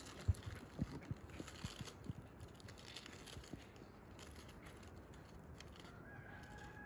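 Faint outdoor ambience with a scatter of soft knocks and clicks in the first few seconds, then a faint thin steady tone near the end.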